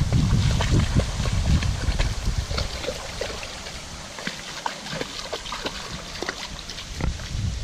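A dog wading through shallow water, its legs splashing in quick, irregular steps. Wind rumbles on the microphone in the first half, then dies down.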